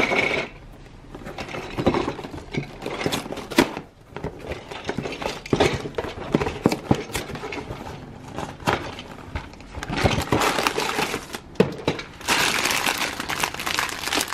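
Cardboard toy box being handled and opened, with scattered scrapes and clicks, then clear plastic bags of Playmobil parts crinkling steadily near the end.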